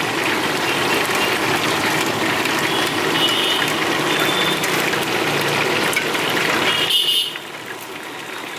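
Steady road traffic noise with vehicle engines running and a few short high beeps, turning abruptly quieter about seven seconds in.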